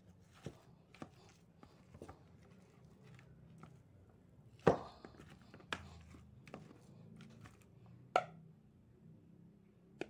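Boiled potatoes being squeezed and crushed by hand in a plastic bowl: quiet squishing with scattered sharp knocks, the loudest a little before the middle.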